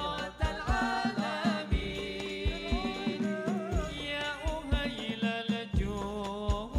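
Background music with a steady hand-drum beat under a wavering melodic line.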